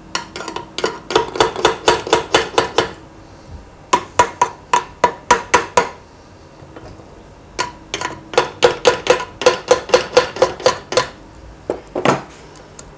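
Soft-faced mallet tapping the cast gear housing of a Rotax engine's reduction gearbox to break it free of its two locating dowels. Three runs of quick taps, about four or five a second, each tap with a short ring, then a couple of single knocks near the end.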